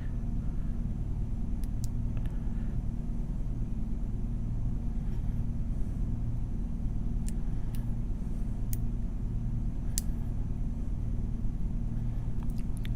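Steady low background hum, with a few faint sharp clicks scattered through from lock-picking tools working a small padlock.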